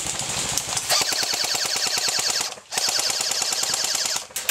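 Airsoft MP40 replica firing on full auto: a rapid, even rattle of shots in long bursts, with a short break about two and a half seconds in and another near the end.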